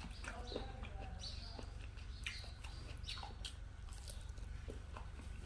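Close-miked eating sounds of chicken and rice being chewed: scattered wet mouth clicks and smacks over a steady low hum.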